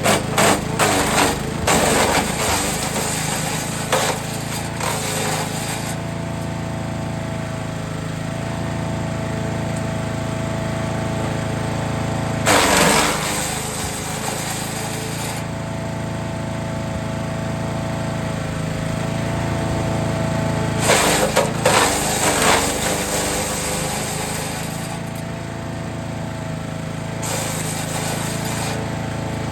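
Forest Master FM8DD wood chipper's engine running steadily while branches are fed in, with loud bursts of crackling and crunching as the wood is chipped: through the first few seconds, again around the middle, and once more about three quarters of the way through.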